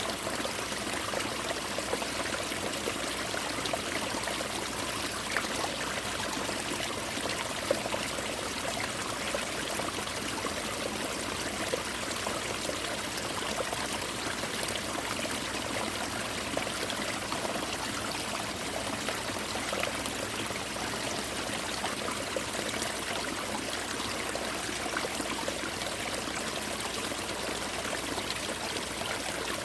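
Mountain stream water pouring and splashing over ice-covered rocks, a steady rushing and trickling with small splashes throughout.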